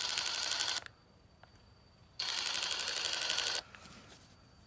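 RIDGID 18V brushless cordless 1/4-inch ratchet running in reverse, a fast, even mechanical clicking. It runs in two bursts: the first stops about a second in and the second lasts about a second and a half, ending just after the middle.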